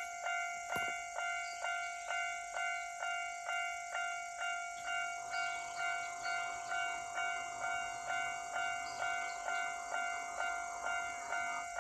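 Japanese level crossing's electronic warning bell ringing in an even, rapid ding-ding rhythm, about two and a half strikes a second. From about five seconds in, a Kintetsu Osaka Line train passes over the crossing, its running noise under the bell until shortly before the end.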